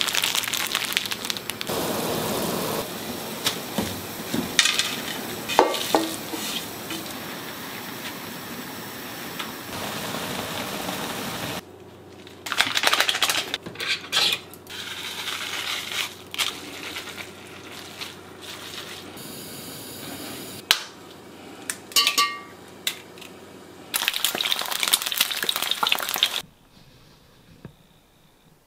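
A run of short kitchen clips: jjajang ramyeon noodles sizzling in a wok as dark sauce is poured from a packet, with clinks of metal utensils against the pan. It drops to quiet room tone near the end.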